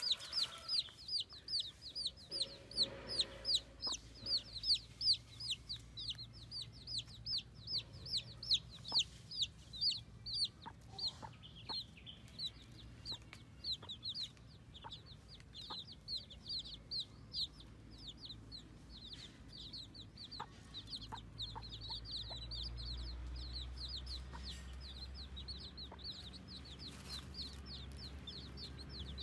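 Baby chicks peeping: a continuous run of short, high chirps, each falling in pitch, about two or three a second, louder in the first half. A low hum comes up about two-thirds of the way through.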